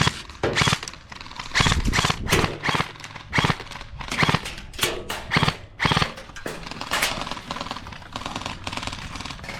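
Airsoft guns firing: irregular single shots and short rapid bursts, thinning out after about seven seconds.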